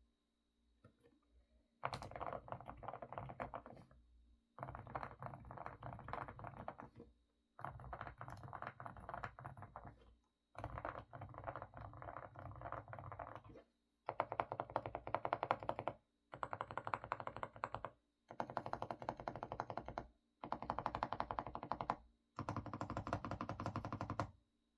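Fast typing on an AK68 mechanical keyboard with semi-silent Didimdol switches: about nine runs of rapid keystrokes, each a couple of seconds long with short pauses between, the later runs louder and denser. The keystrokes make a full, muffled clack, likened to a pot of stew bubbling.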